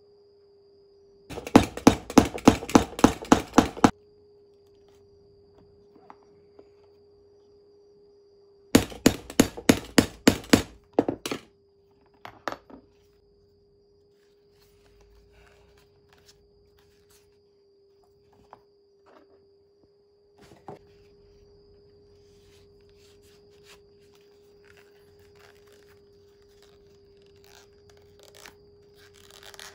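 Hammer tapping a metal leathercraft setting tool held on the leather of a knife sheath: a quick run of about ten sharp knocks at about four a second, a second run of about eight a few seconds later, then a few single knocks; faint handling of the leather follows.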